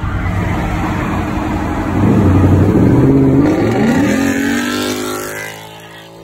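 Ford Mustang engine revving and accelerating hard as it passes, its pitch climbing from about two seconds in, then fading as the car pulls away ahead.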